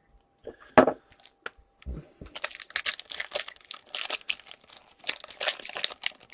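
Foil wrapper of a hockey card pack crinkling and tearing as it is ripped open by hand, a dense irregular crackle starting about two seconds in. A single short knock comes near the start.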